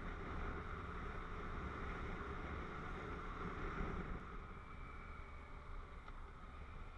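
Yamaha MT-09's three-cylinder engine running at a steady cruise, mixed with wind rush on a helmet-mounted camera; the noise eases off a little after about four seconds.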